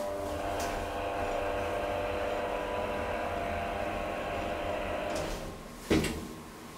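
DEVE hydraulic elevator car travelling, its pump and motor giving a steady humming whine. The hum stops about five seconds in as the car arrives, followed by a single loud clunk.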